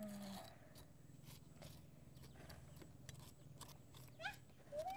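Faint scraping and small clicks of a steel kitchen knife working the charred skin off a roasted cassava root held in metal tongs. Two short rising cries come near the end.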